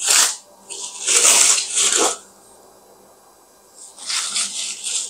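Thin plastic wrap crinkling and rustling as it is unwrapped and pulled off a ball of carrot fufu, in three bouts of rustling with short pauses between.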